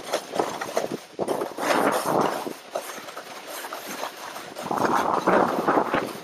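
Scraping and chattering of a ride over rough, slushy spring snow, swelling in two long surges with the turns and rattling with small knocks in between.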